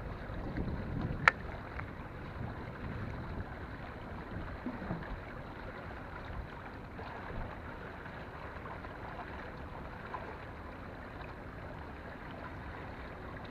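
Steady outdoor wind and water noise on the microphone, with a heavier low rumble in the first couple of seconds and one sharp click about a second in.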